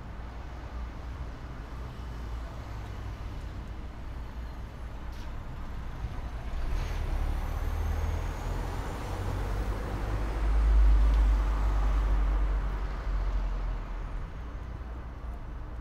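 Low rumble of road traffic, with a heavy vehicle going by. It builds from about six seconds in, is loudest around eleven seconds in, then eases off.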